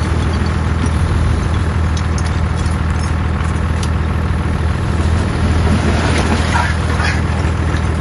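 Bulldozer's diesel engine running steadily at work, with scattered sharp clicks and knocks over it.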